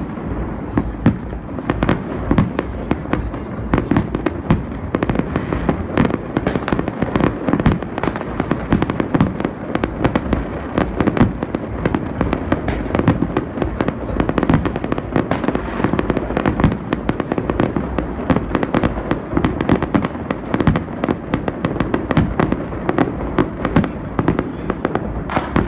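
Fireworks and firecrackers going off all over a city at once: a dense, continuous barrage of bangs, pops and crackles, near and far, with no let-up.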